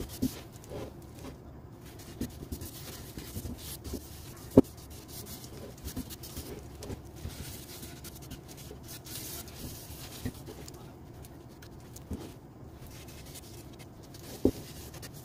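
A cloth being rubbed by hand over the finished surface of a Kaizuka juniper wood vase, a soft, uneven scuffing. A few light knocks break in, the sharpest about four and a half seconds in.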